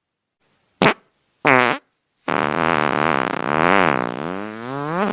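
Fart sounds: a quick short one about a second in, a second short one half a second later, then a long drawn-out fart whose pitch wobbles up and down.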